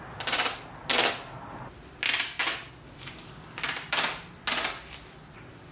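Duct tape being pulled off the roll in short rips, about seven of them, as it is laid along the edge of a sheet of Reflectix foil insulation.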